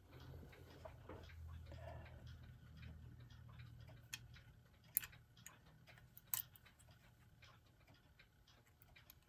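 Small gears and parts of a clock movement being handled and set in place: faint, irregular little clicks and taps of metal parts, with a low rumble under the first few seconds.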